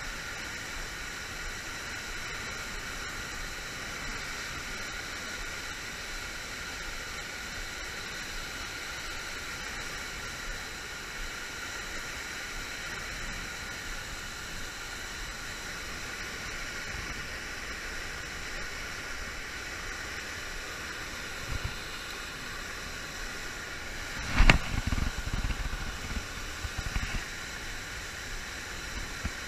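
Steady rush of river water pouring over a low-head dam. About three-quarters of the way through, a sharp knock is followed by a couple of seconds of low bumps and thuds close to the microphone.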